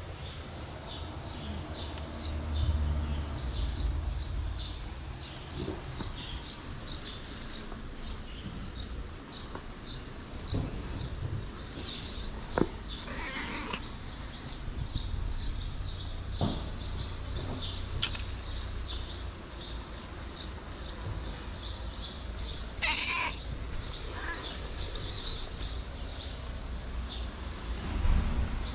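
A calico cat meowing a few times while being petted, with short separate calls. Throughout, a steady, rapid high chirping of about four chirps a second runs in the background.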